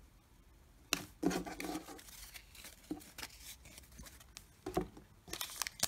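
A stack of trading cards being handled, with a sharp tap about a second in and a few soft clicks. Near the end a foil trading-card pack wrapper starts crinkling loudly as it is torn open.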